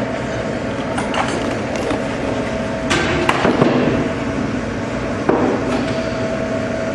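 A few sharp metal clinks and knocks from working a lathe's four-jaw chuck, over a steady machine-shop hum. The knocks come about a second in, a cluster around three seconds in, and one more at about five seconds.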